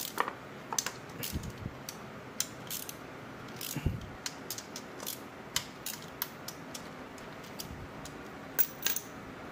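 Ratchet wrench clicking in short irregular runs as engine-cover screws are loosened, with a couple of dull knocks and a louder pair of clicks near the end.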